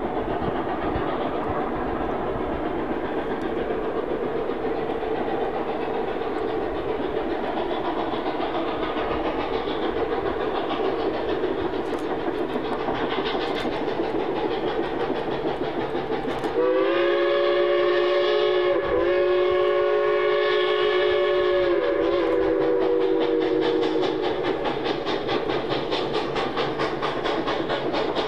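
Narrow-gauge train running along the rails with a steady noise, then about sixteen seconds in a Rio Grande K-28 steam locomotive's whistle sounds one long blast of several notes at once, dipping briefly partway through, lasting about seven seconds before it tails off.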